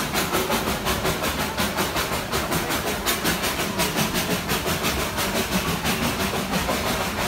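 Darjeeling Himalayan Railway steam toy train running at low speed, a steady rhythmic beat of about four pulses a second over a continuous hiss.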